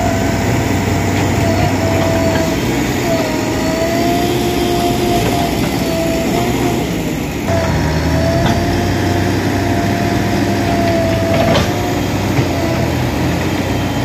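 An engine running steadily, with a wavering whine over a low hum; the sound changes abruptly about halfway through.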